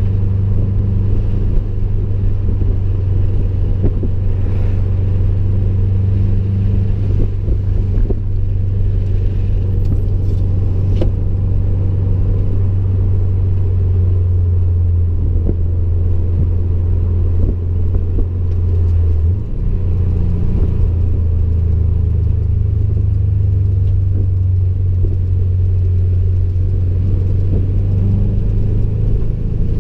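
Exhaust rumble of a Stage 3 2020 Subaru WRX STI with a turbo-back exhaust, heard inside the cabin while driving: its turbocharged 2.5-litre flat-four makes a steady low drone. The drone dips briefly about two-thirds of the way through.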